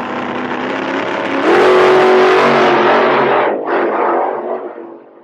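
Car engine revving: it jumps louder and climbs in pitch about a second and a half in, holds steady, breaks off briefly about three and a half seconds in, then fades out.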